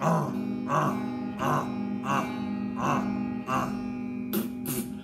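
Electric guitar being strummed: a chord struck about every 0.7 seconds and left ringing between strokes, then sharper, brighter strums near the end.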